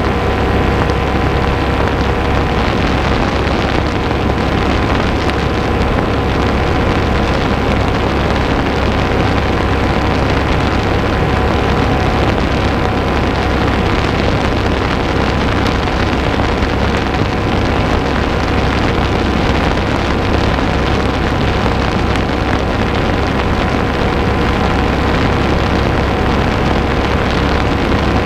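Paramotor engine and propeller running at a steady throttle in flight, a constant drone with a steady hum, mixed with wind noise on the microphone.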